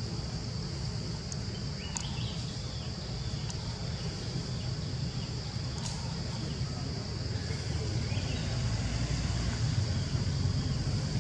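Outdoor ambience: a low wind rumble on the microphone that grows louder toward the end, over a steady high-pitched drone, with a few faint clicks.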